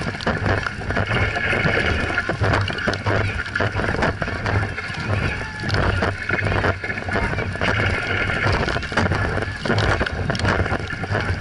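Dragon boat racing at full pace: paddle blades splashing into the water stroke after stroke, with the boat rushing through the water and wind buffeting the stern-mounted action camera's microphone.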